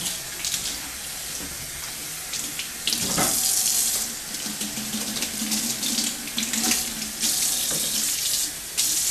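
Water running from a kitchen tap into a stainless-steel sink and splashing over a wet cat being scrubbed under the stream. The flow rises and dips in loudness as the water strikes the cat and the sink.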